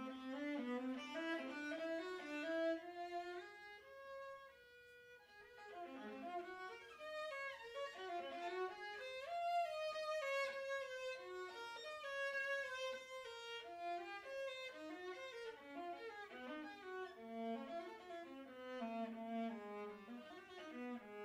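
Solo viola playing a slow adagio line, its notes climbing over the first few seconds, then a brief quieter held passage about four to five seconds in before the melody resumes.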